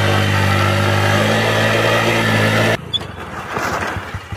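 Motorcycle engine running at a steady speed, cut off abruptly a little under three seconds in, leaving a quieter, hissy stretch.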